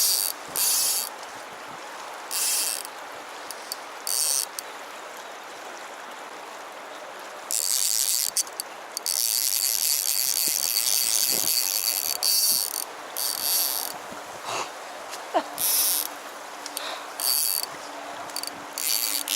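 Fly reel's click-and-pawl drag ratcheting in repeated bursts, short ones and longer runs, as line goes on and off the spool while a strong rainbow trout is played.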